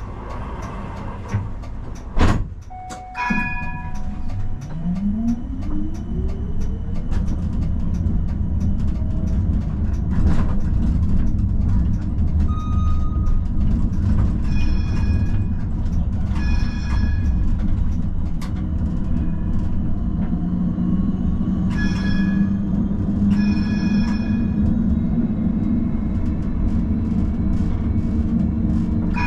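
Amsterdam tram pulling away and running. After a sharp click, its electric traction motors whine rising in pitch as it accelerates, then settle into a steady rumble of wheels on rails, with short ringing signal tones sounding several times, mostly in pairs.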